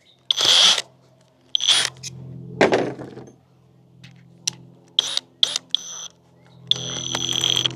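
Power drill running in several short trigger bursts, with small clicks between them, then a longer run of about a second near the end with a steady whine.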